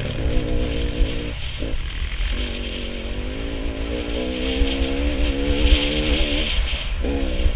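Dirt bike engine running under constantly changing throttle, its pitch wavering up and down. The engine note drops out briefly about a second and a half in, again around two seconds, and once more near the end, as the throttle is shut and reopened.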